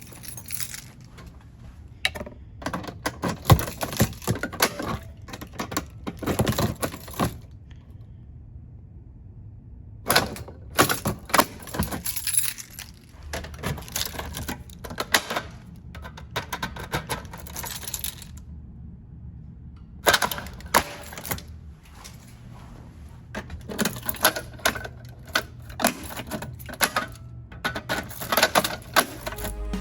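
Notifier fire alarm pull stations being worked by hand during silent testing: clusters of sharp metal clicks, latch snaps and rattles, with two short lulls between them.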